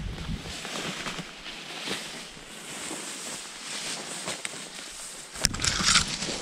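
Footsteps and tall grass and brush swishing against legs and gear as someone wades through a dense meadow. A sharp click followed by a louder burst of rustling comes about five and a half seconds in.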